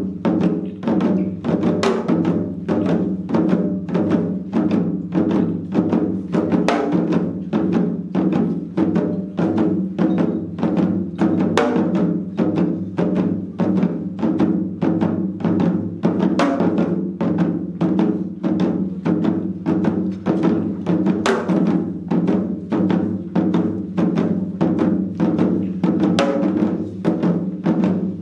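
Four janggu, Korean hourglass drums, played together in seoljanggu: a steady, fast run of sharp stick strokes over deeper drum-head beats that keeps going without a break.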